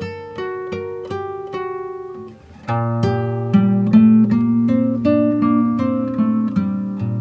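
Background music: plucked acoustic guitar playing a melody of short picked notes, turning into a fuller passage with a steady low bass note after a brief dip about two and a half seconds in.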